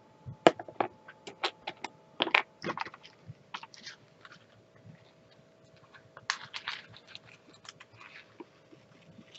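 Small clear plastic diamond-drill containers clicking and clacking against each other and the plastic storage case as they are handled, a quick irregular run of sharp clicks that thins out after about three seconds.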